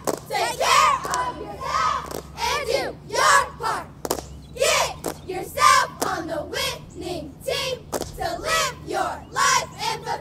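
A squad of teenage girl cheerleaders shouting a cheer in unison in short rhythmic phrases, with a few sharp claps.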